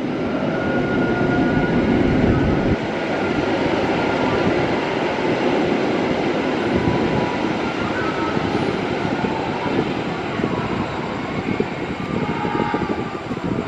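Executive-class coaches of the Bima passenger train rolling past, a steady noise of steel wheels running on the rails that eases slightly toward the end.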